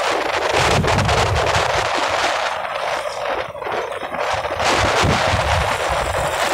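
Loud, rough rushing noise with constant crackling, typical of wind buffeting the microphone while riding along a road, with engine rumble underneath. It dips briefly about three and a half seconds in.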